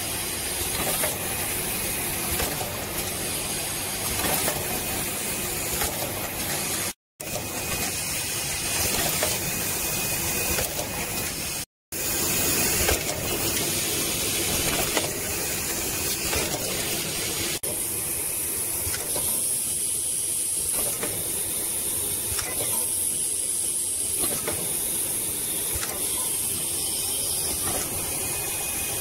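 HTGF-50 automatic tube filling and sealing machine running: a steady hiss of compressed air with mechanical clicks. The sound cuts out briefly twice in the first half, and a brighter, higher hiss comes in a little past halfway.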